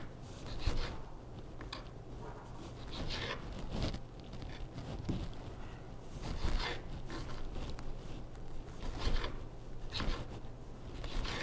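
Kitchen knife slicing a tomato into small pieces on a cutting board, in short irregular scraping cuts, over a low steady hum.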